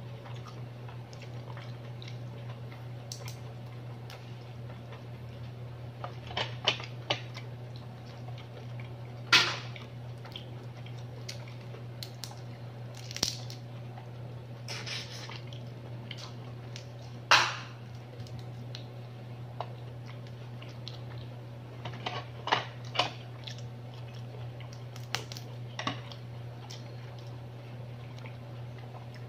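Cooked mud crab being broken apart by hand and eaten: irregular sharp cracks and snaps of shell, about a dozen, the loudest near 9 and 17 seconds in, over a steady low hum.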